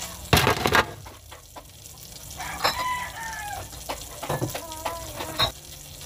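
Hard plastic ice trays clattering as they are handled, loudest just after the start, with a few lighter knocks later. Two drawn-out animal calls sound in the background, about two and a half and five seconds in.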